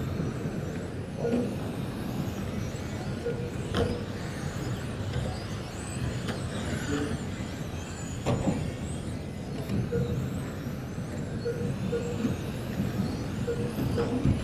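Electric 1/10-scale RC touring cars racing on a carpet track, their motors whining up and down with the throttle over tyre noise. Sharp knocks about 4 s and 8 s in are cars hitting the track barriers.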